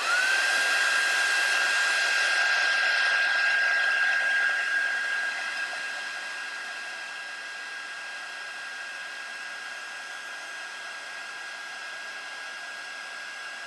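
Small craft heat gun switched on and running: a steady fan hiss with a thin high whine that rises to pitch in the first moment and then holds, heating a piece of shrink plastic until it shrinks. The hiss drops somewhat about five seconds in.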